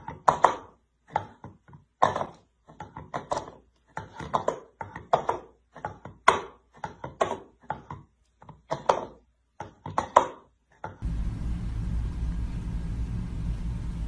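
A cat's paw striking an empty plastic bowl over and over: hollow knocks about twice a second, often in pairs, which stop about eleven seconds in. A steady low rumble follows.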